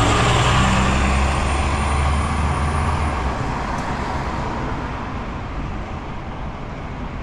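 Scania L94UB bus's rear-mounted 9-litre five-cylinder diesel engine pulling away, its engine note fading as the bus drives off. A high whine fades out about three seconds in.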